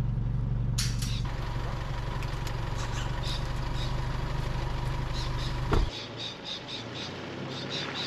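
A ute's engine idling steadily, then switched off about six seconds in with a single thump, after which the idle drops away.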